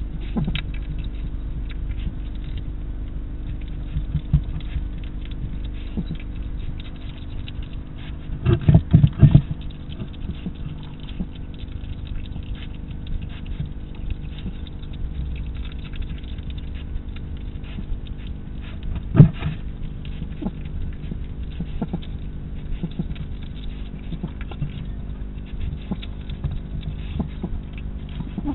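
Hedgehog feeding at a dish close to the microphone: a run of small clicks and crunches as it eats, with a cluster of louder knocks about eight to nine seconds in and one sharp knock about nineteen seconds in. A steady low hum runs underneath.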